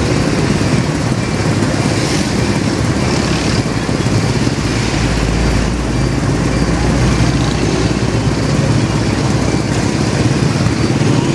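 Street traffic noise: motorcycle and auto-rickshaw engines running and idling in slow, congested traffic, a steady dense rumble.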